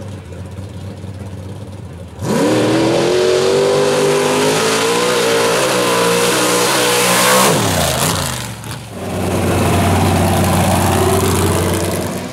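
Mud-drag vehicle's engine at full throttle. It jumps suddenly to a loud, steady run about two seconds in, its pitch falls as the throttle comes off about five seconds later, and then it runs loud again until near the end.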